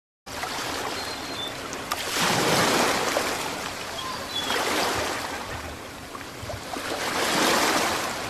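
Ocean surf breaking and washing up a sandy beach, a steady rush that swells roughly every two and a half seconds as each wave comes in. It starts suddenly just after a moment of silence.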